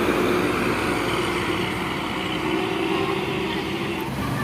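Steady road traffic noise: vehicle engines running and tyres on the road, with a faint steady engine drone underneath.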